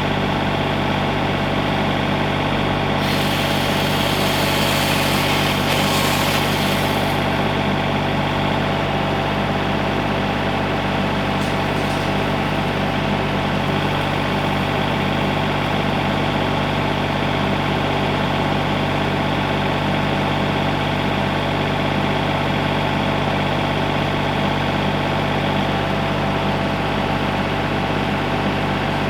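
Engine idling steadily, with a hiss about three seconds in that lasts some four seconds.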